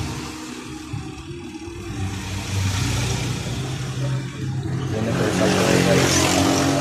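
A motor vehicle's engine running, getting louder about five seconds in.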